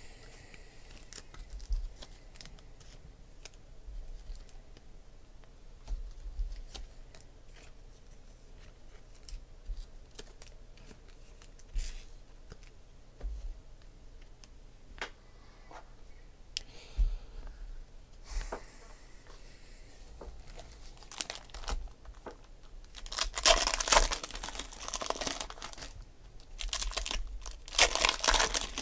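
Foil trading-card packs being torn open and their wrappers crinkled, with scattered light clicks of cards being handled. Two louder spells of tearing and crinkling come near the end.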